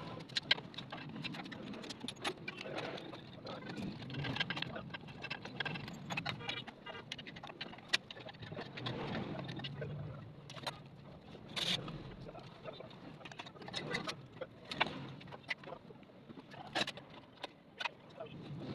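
Irregular metallic clicks and clinks of tools and engine parts being handled, over a low background rumble.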